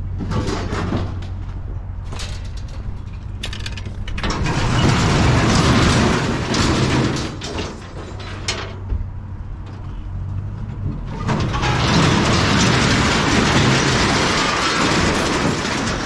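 Mixed scrap metal clattering and scraping as a trailer load is dumped, in two long rattling stretches, the second starting about eleven seconds in. A vehicle engine idles steadily underneath.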